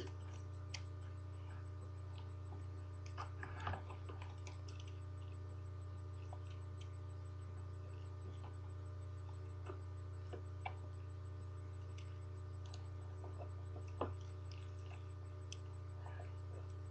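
Faint, scattered clicks and taps of small plastic and metal parts being handled and clipped together while an iPod Touch is reassembled, over a steady low electrical hum. The clearest clicks come a little before four seconds in and at about fourteen seconds.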